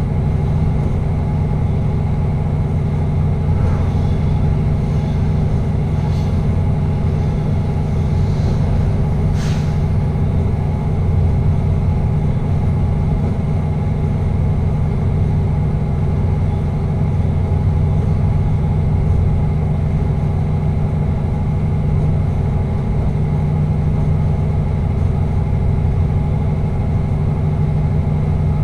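Passenger train running at steady speed, heard from the driving cab: an even rumble with a steady hum that does not change in pitch, and a few faint clicks in the first ten seconds.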